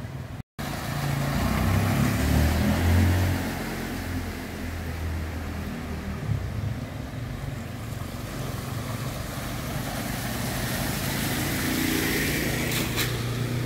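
Motor scooter engine running as it rides through shallow floodwater, with other motor vehicle engines, loudest about two to three seconds in and swelling again near the end, over a steady background hiss.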